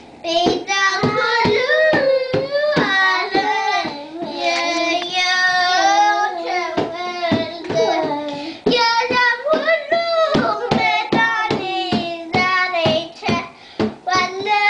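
A child singing loudly, accompanied by a small double-headed barrel drum struck by hand in a steady beat of sharp strokes, about two or three a second.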